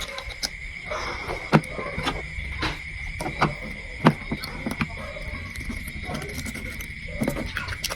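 Insects trilling steadily in the background, with scattered sharp clicks and knocks over the top.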